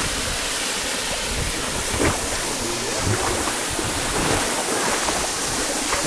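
Small waterfall pouring over a rock ledge into a pool: a steady rush of falling water.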